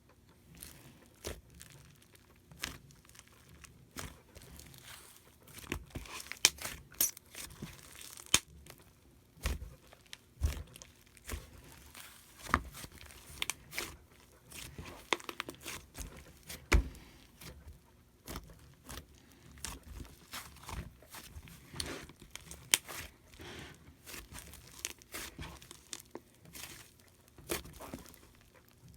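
Hands squishing, poking and stretching slime, making irregular sharp clicks and crackles, with a few louder pops.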